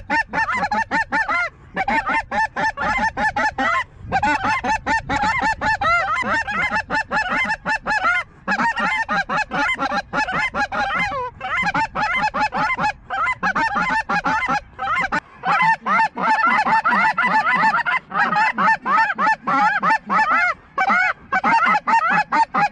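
Snow geese calling: a dense chorus of many overlapping high, yelping honks with hardly a break, growing louder about two-thirds of the way in.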